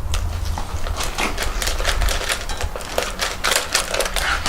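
Irregular rapid clicking and crackling of plastic toy packaging and plastic toy parts being handled.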